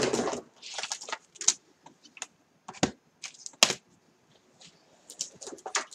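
Craft supplies being unpacked and handled: irregular clicks, taps and short rustles of packaging. A louder rustle comes at the start and a few sharp clicks follow about three seconds in.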